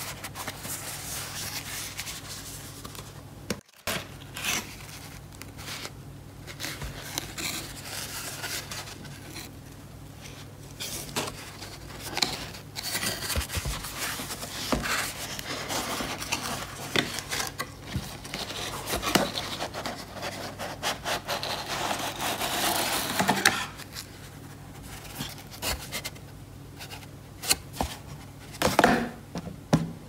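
Cardboard box being opened by gloved hands: flaps and sleeve scraping and rubbing, with small taps and clicks. The inner cardboard tray slides out, and there is a longer stretch of steady rustling and scraping in the middle.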